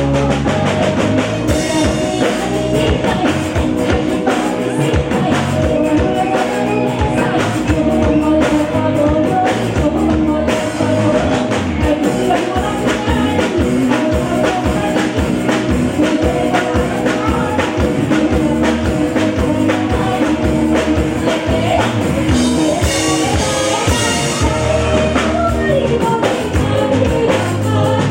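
Live band music with a singer, drums keeping a steady beat.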